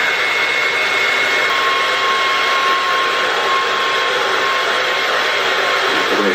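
Hand-held hair dryer running steadily: a loud rush of air with a high, steady whine.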